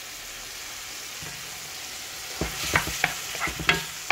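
Shrimp sizzling in a frying pan, a steady hiss. About halfway through, a wooden spoon starts stirring them, knocking and scraping against the pan about three times a second.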